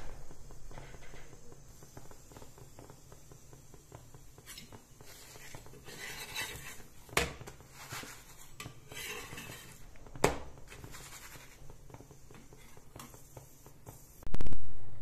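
Metal spatula scraping and tapping on a flat iron griddle as a paratha is pressed and turned, with two sharp clicks a few seconds apart. A loud knock near the end.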